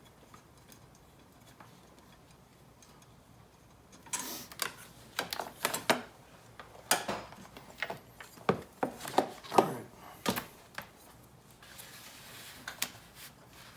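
About four seconds of low room tone, then a run of irregular sharp clicks and knocks from hands handling a car battery's cable, terminal clamp and hardware, with several heavier knocks among them.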